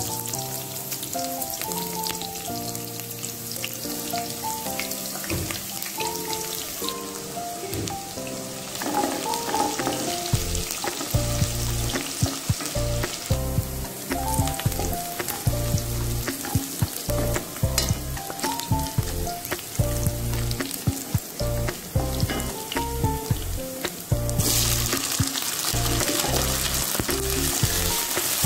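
Chopped onions sizzling in hot oil in a pot while being stirred with a wooden spoon. The sizzle gets louder about three-quarters of the way through, as carrots and peas go into the pot. Background music with a melody and a steady bass beat plays over it.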